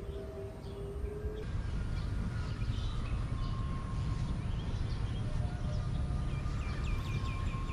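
Birds chirping and calling outdoors, many short chirps with a quick run of about six repeated notes near the end, over a steady low background rumble.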